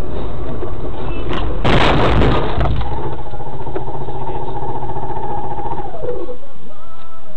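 Car collision heard from inside a car: steady road and engine rumble, then a loud crunching impact about two seconds in lasting about a second. A steady whining tone follows, then slides down in pitch and fades about six seconds in.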